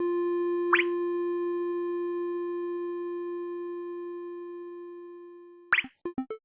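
Background music: one long held synth note that slowly fades over about five seconds, with a quick rising swoop just under a second in and another near the end, after which the bouncy plucked tune comes back.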